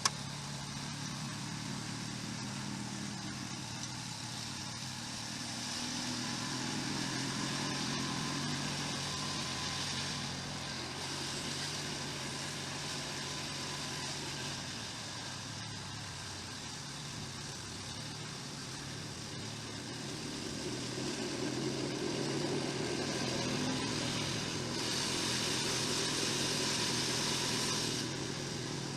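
Snowblower engine running steadily, with a rushing hiss that swells twice, about six seconds in and again near the end.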